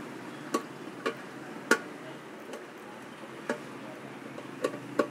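A screwdriver clicking and ticking against the screws and plastic base cover of an electric rice cooker as the cover screws are taken out: about seven sharp clicks at irregular spacing, the loudest about two seconds in and two close together near the end, over a low steady background hum.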